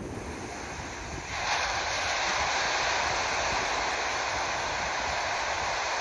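Sea surf: a steady rushing wash of water that swells suddenly about a second and a half in and then holds, with a low wind rumble on the microphone underneath.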